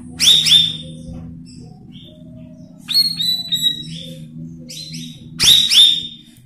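Cucak rawis (leafbird) singing: three bursts of sharp, quickly falling whistled notes, near the start, about three seconds in and near the end, over a steady low hum. It is a lure song for taming newly caught birds.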